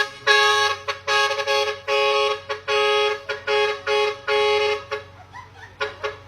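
Telolet basuri multi-tone bus horn playing a tooting melody in held chord-like notes, each under a second with short gaps between. It fades about five seconds in, and a few short toots follow near the end.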